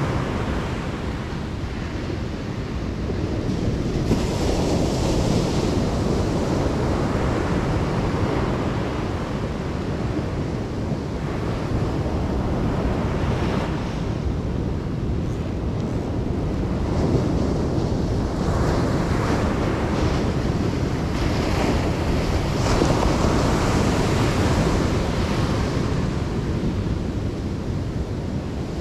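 Ocean surf breaking and washing up the beach, swelling every few seconds, with wind rumbling on the microphone.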